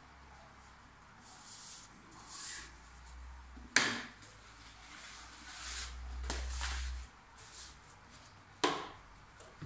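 White plastic frame tubes being handled and slid against each other, with a rubbing, scraping sound and two sharp knocks of plastic on the metal tabletop, about four seconds and nine seconds in.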